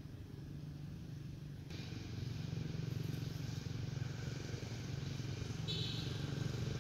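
A steady low engine hum, growing louder about two seconds in, with a short high squeak near the end.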